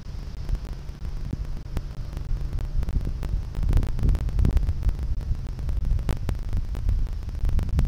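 Wind buffeting the microphone: an uneven low rumble with scattered crackles, gusting louder a little under halfway through.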